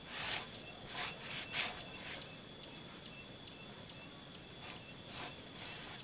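Cloth rag rubbing across a painted wall in a series of short swishes, wiping off dust, with insects chirping steadily behind.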